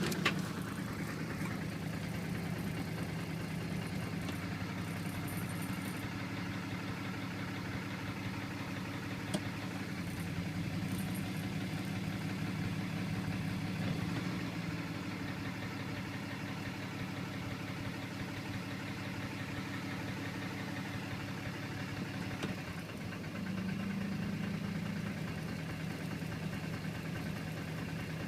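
6.7-litre Cummins turbo-diesel engine of a 2008 Dodge Ram 2500 idling steadily, with a knocking from the engine that the owner cannot place and finds alarming.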